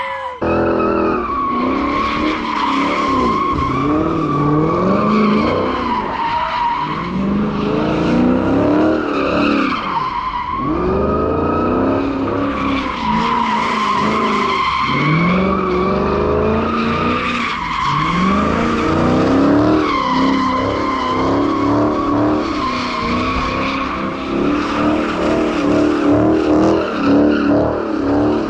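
Dodge Charger doing continuous donuts, its tires squealing steadily as they spin. The engine's revs rise and fall every two seconds or so as the driver works the throttle to hold the slide.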